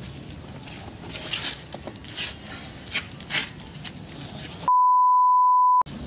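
Rustling and scraping of a backpack's fabric and zips as hands search through it, then near the end a steady high beep of about a second that blanks out all other sound: a censor bleep dubbed over a word.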